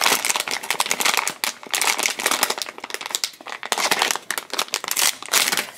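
Foil blind-box pouch crinkling and tearing as it is pulled open by hand along its tear strip: a dense, continuous crackle with brief lulls.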